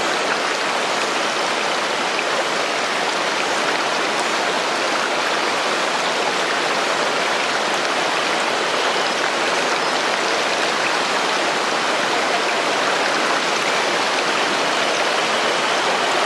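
Stream water rushing steadily, an even, unbroken wash of flowing water.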